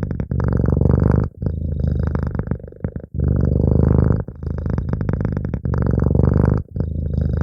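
Domestic cat purring close to the microphone: a low, rapidly pulsing buzz that swells and eases in alternating louder and softer phases every second or two.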